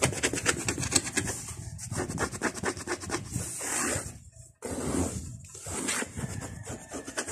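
Close, rapid rasping strokes of a kitten licking and grooming another kitten's fur, breaking off briefly about halfway through before starting again.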